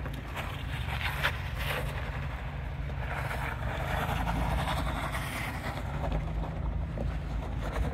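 Ford Bronco's engine running low and steady as the SUV crawls away slowly over sandstone and sand, with grainy tyre noise on the grit strongest in the middle.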